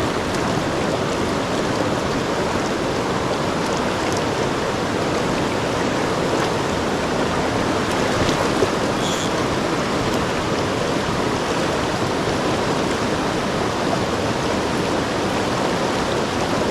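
Mountain creek water rushing over rocks, a steady, unbroken noise.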